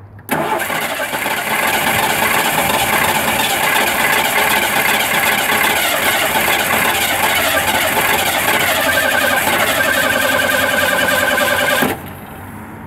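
Ford 232 V6 engine cranking over on the starter motor for about eleven seconds without catching, then stopping abruptly near the end; a higher whine joins in during the last few seconds of cranking. It is a no-start: the engine turns over but does not fire.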